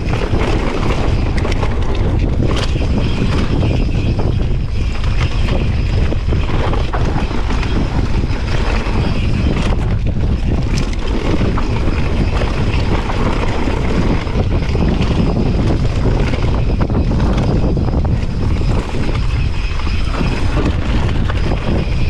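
Strong, steady wind buffeting the microphone: a dense rushing noise with a heavy low rumble and scattered short knocks.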